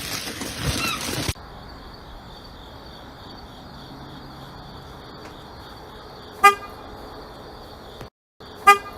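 A loud, noisy stretch with small chirping tones cuts off about a second in, leaving a quiet steady background. Two short, loud honks follow, one about six and a half seconds in and one near the end.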